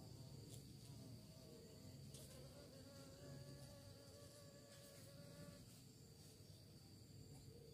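Faint buzzing of bees flying among garden flowers. One buzz comes through more clearly for about two seconds from about three seconds in, over a steady high-pitched tone.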